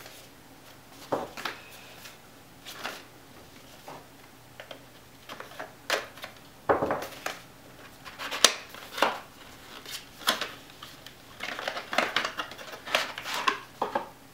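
A small cardboard retail box for a Samsung 970 NVMe SSD being opened and handled, and its plastic inner tray pulled out: an irregular run of crisp clicks, scrapes and rustles, busier in the second half.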